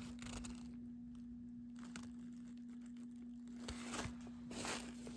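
Stiff, dried-out old leather of a jacket being handled and flexed: faint rustling and crinkling with a few small ticks, growing louder near the end. A steady low electrical hum runs underneath.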